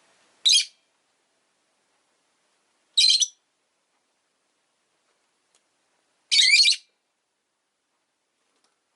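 Rosy-faced lovebird giving three loud, shrill, high-pitched calls a few seconds apart, the last one longer.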